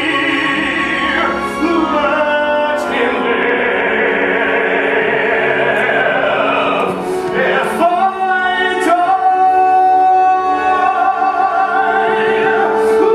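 A male singer sings a musical-theatre number in a full, operatic style with strong vibrato over instrumental accompaniment, holding long notes in the second half.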